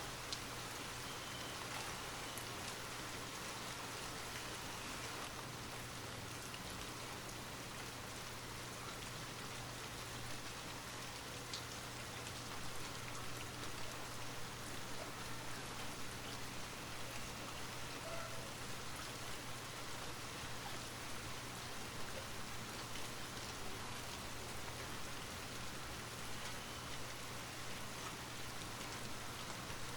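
Steady light rain falling, an even hiss with scattered small drop ticks, a little heavier from about twelve seconds in.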